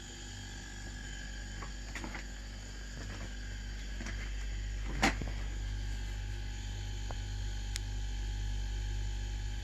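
Old freezer compressor, rebuilt as a quiet air compressor, running with a steady low hum that slowly gets louder; a single sharp click about halfway through.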